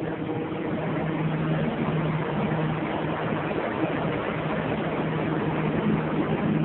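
Bed bug heat-treatment equipment running: a steady machine hum over a constant rush of air.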